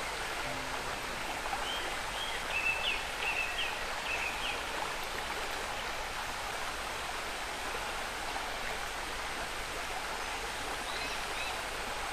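Shallow stony river flowing: a steady rush of running water. A few short high chirps come about two seconds in and again near the end.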